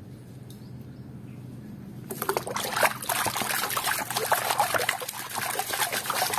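Muddy water splashing and sloshing in a plastic basin as a hand scrubs a toy in it, starting about two seconds in.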